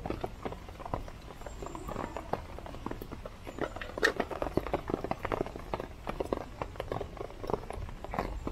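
Rain pattering on the tarp overhead: a dense, irregular run of taps. A sharper click about four seconds in is the steak knife being set down on the wooden cutting board.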